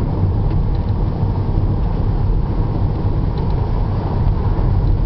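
Car engine and tyre noise heard from inside the cabin while driving slowly: a steady low rumble with a few faint ticks.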